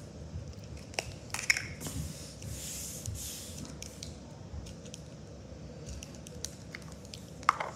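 Green Play-Doh being handled out of its plastic tub: scattered light clicks and taps, and a soft hiss lasting about a second near the middle as the dough is pulled and worked.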